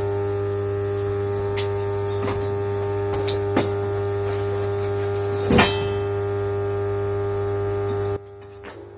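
Steady electrical mains hum. Several light metallic clicks and one sharper metal clank with a brief high ring, about five and a half seconds in, sound over it. The hum cuts off abruptly near the end.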